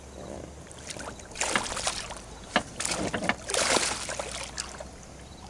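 A tiger musky thrashing at the surface beside the boat: several short bursts of splashing water.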